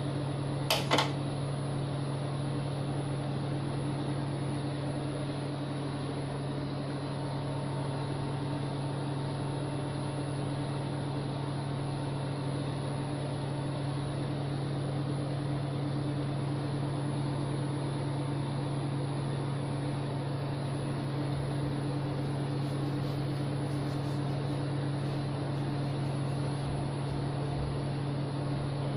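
Steady hum of a running motor with an even rushing-air hiss, and a short knock about a second in.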